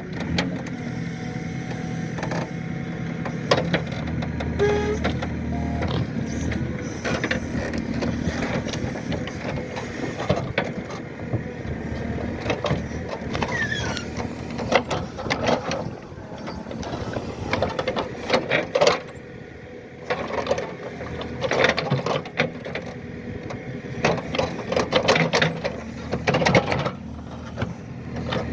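Excavator running steadily while it works out acacia stumps, with repeated knocks and clatter that come thicker in the second half.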